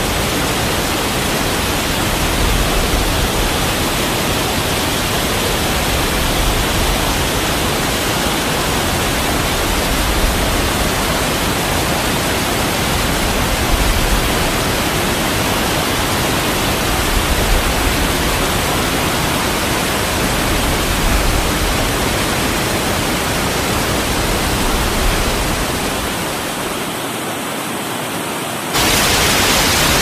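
Waterfall pouring down a rock face: a loud, steady rush of falling water. Near the end it softens and loses its low end for a couple of seconds, then cuts back in suddenly, louder and hissier.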